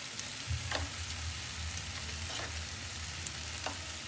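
Spaghetti in tomato sauce sizzling in a pan while being stirred with a spoon, with a few sharp clicks of the spoon against the pan. A low hum runs underneath from about half a second in.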